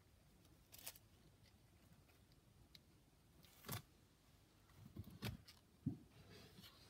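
Near silence with a handful of faint short clicks and rustles, the loudest about four seconds in and a small cluster between five and six seconds in.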